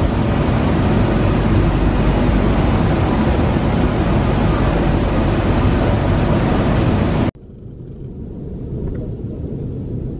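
Singapore MRT train running, a loud steady noise of the moving metro car heard from inside the carriage. About seven seconds in it cuts off suddenly to a quieter, low hum of station ambience.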